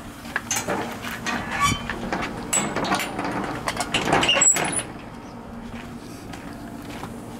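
Footsteps in flip-flops on a concrete path, with scattered knocks and clicks, over the low steady hum of a running mini split outdoor unit. A sharp clack about four and a half seconds in is likely a gate or door, after which only the quieter hum remains.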